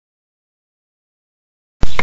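Dead silence, then near the end the audio cuts in abruptly with a sharp loud thump followed by a steady low rumble and hiss.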